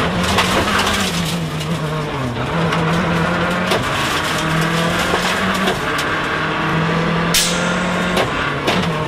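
Mitsubishi Lancer WRC05 rally car's turbocharged four-cylinder engine pulling hard at high revs, the revs dipping and picking up again several times as the car is driven through the stage. A single sharp bang cuts through about seven seconds in.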